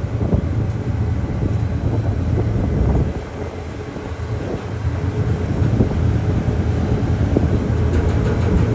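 Steady low drone of a car ferry's engines heard aboard the vessel, easing off briefly about three seconds in.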